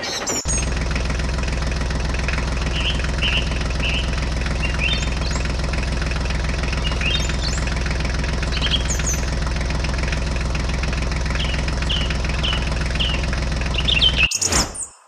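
Tractor engine running steadily at an even idle-like pace, starting suddenly just after the start and cutting off near the end, with birds chirping over it throughout.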